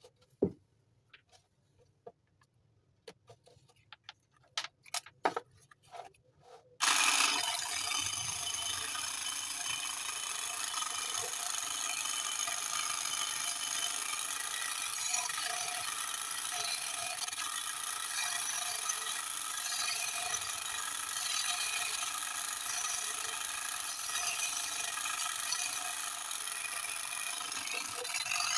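A few light clicks and knocks of handling, then about seven seconds in the small DC motor of a homemade popsicle-stick tool switches on. It drives a crank linkage and runs steadily with a high-pitched whine.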